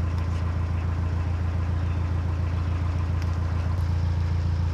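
Narrowboat's diesel engine running steadily at low revs, a deep even hum.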